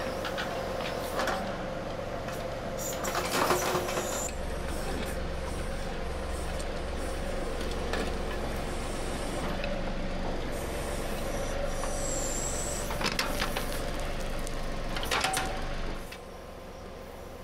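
Compact tractor diesel engine running steadily under load as its rear backhoe digs through compacted clay, with a few brief louder knocks from the bucket working. The sound drops off sharply near the end.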